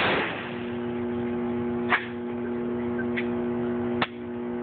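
Three shots from a 12-gauge Remington pump-action shotgun, about two seconds apart: one right at the start with a ringing tail, then two sharper cracks about 2 and 4 seconds in. A steady hum runs underneath.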